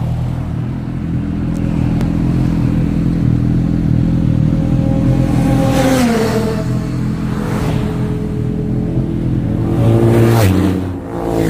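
Vehicle engines running at highway speed with wind noise, and a motorcycle passing close by about ten seconds in, its engine pitch dropping as it goes past. Another downward pitch glide, like a vehicle passing, comes about six seconds in.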